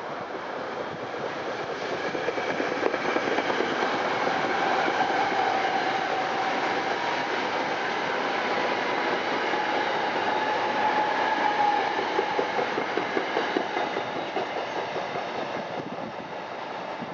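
SEPTA Silverliner IV electric multiple-unit commuter train passing and pulling away, its wheels clicking rapidly over the rail joints with a faint steady whine. The sound swells about two seconds in and fades over the last few seconds as the train recedes.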